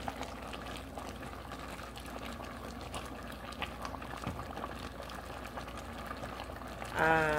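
Diced papaya simmering in caramel sugar syrup in an aluminium pot, bubbling steadily as a wooden spoon stirs through it, with water just added to the syrup.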